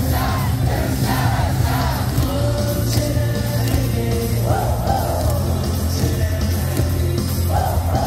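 Ballpark cheering: a cheer song with a heavy steady beat over the stadium loudspeakers, with a crowd of fans singing and yelling along.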